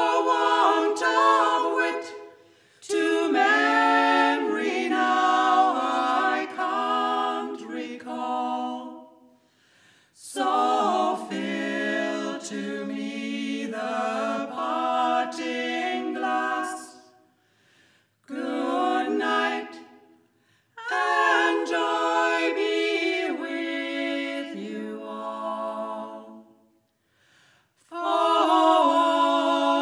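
Barbershop quartet of three women and one man singing a cappella in close harmony, in sung phrases separated by short breath pauses.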